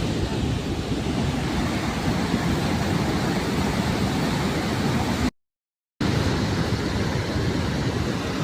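Loud, steady rush of a swollen river in flash flood. It cuts off for a moment about five seconds in, then goes on.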